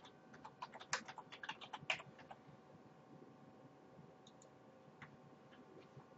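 Computer keyboard being typed on in a quick run of faint key clicks for about two seconds, followed by a few single clicks.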